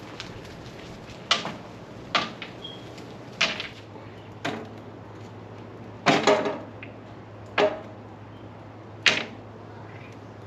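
Rounded stones set one by one into a small metal kettle grill, each giving a sharp clack of stone on stone or on the grill. There are about eight clacks a second or so apart, with a quick cluster about six seconds in.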